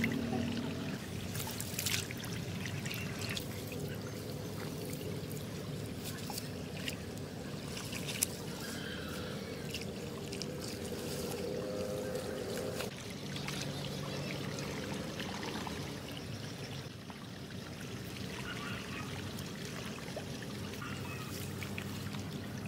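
Shallow muddy water trickling and splashing, with scattered short clicks and rustles from hands working in the mud and grass.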